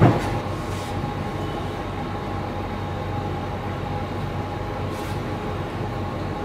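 Steady mechanical drone with faint constant tones running under it, and a single sharp knock right at the start.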